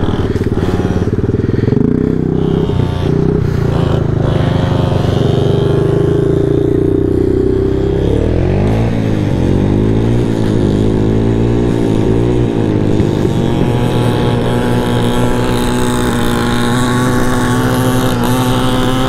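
Honda Ruckus scooter's small single-cylinder engine running under way on a gravel road. Its pitch swings up and down several times near the middle, then holds steady.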